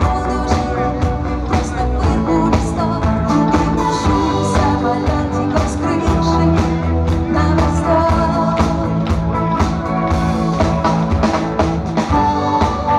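Live pop-rock band playing: drum kit, electric guitar, bass guitar and acoustic guitar, with a woman singing lead.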